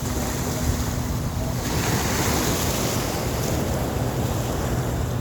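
Ocean surf washing onto the beach, a wave swelling up about two seconds in, with wind buffeting the microphone and a low steady hum underneath.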